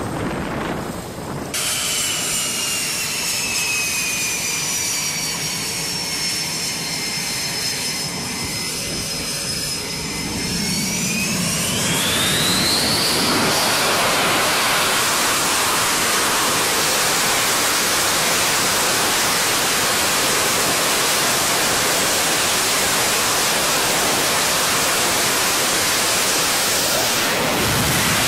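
F/A-18 fighter's twin jet engines on a carrier flight deck: a whine that falls slowly in pitch, then about twelve seconds in rises steeply as the engines spool up to full power. A loud, steady roar follows, the thrust of a jet running up for a catapult launch with afterburners lit.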